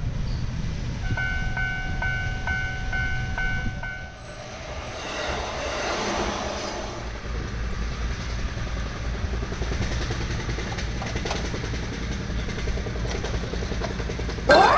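Japanese level-crossing warning bell clanging in a steady repeating two-tone pulse, which stops about four seconds in. A train then runs over the crossing, its wheels rumbling and clattering on the rails. A short, loud rising whistle comes near the end.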